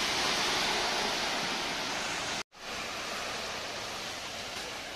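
Steady rushing water on a flooded street, the noise of water churned through and splashed about on the waterlogged road. It cuts out for an instant about halfway, then resumes slightly quieter.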